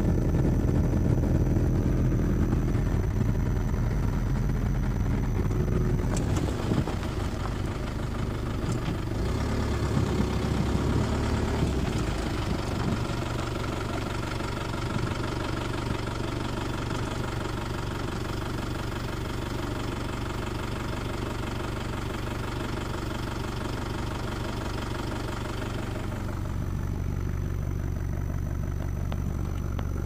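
A vehicle's engine running, heard from inside the cabin. It gives a heavy low rumble for the first six seconds, then a steady idling hum. A steady hiss lies over the hum through the middle and stops about four seconds before the end.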